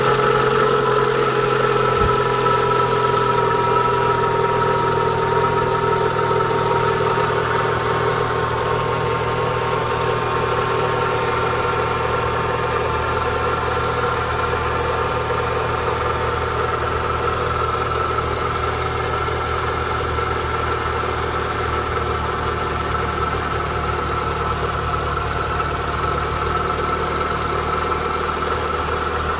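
Renault Clio 182's 2.0-litre four-cylinder engine idling just after a cold start, with a steady whine over the idle from a knackered water pump. The idle and whine ease down a little in pitch over the first few seconds, then hold steady.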